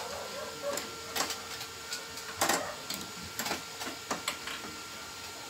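Red-handled hand pliers working on microwave oven wiring: irregular sharp metallic clicks and snips, the loudest about halfway through.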